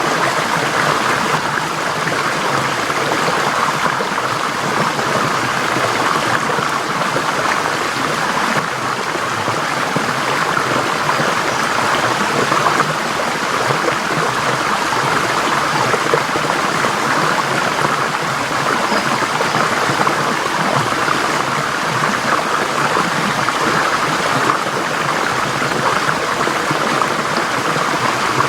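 Forest stream flowing over rocks: a steady, unbroken rush of water with fine splashing.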